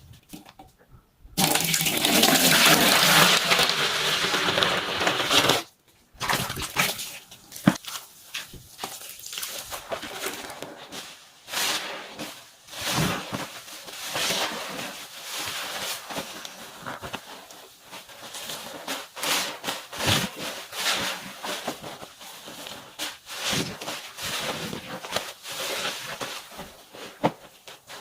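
Water pouring steadily for about four seconds, stopping suddenly. Then a wet, sudsy sponge is squeezed again and again, with irregular crackling and squishing of suds.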